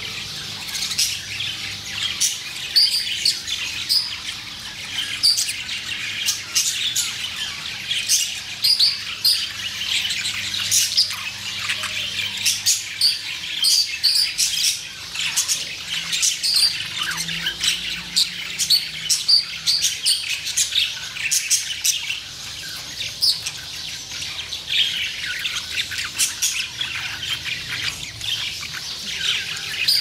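A group of budgerigars chattering: many short, high chirps and squawks overlapping without a break.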